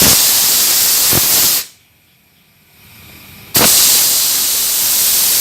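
Compressed air from an air compressor hissing as it blows through a refrigerator's evaporator line, purging leftover R11 flushing solvent after an oil flush. The air cuts off about a second and a half in and comes back on suddenly about two seconds later.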